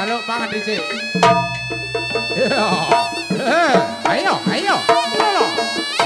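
A traditional Javanese reog ensemble playing: sharp drum and metal-percussion strokes. About a second in comes one deep, ringing stroke that sustains for about two seconds. From the middle onward a melody line swoops up and down in pitch over the percussion.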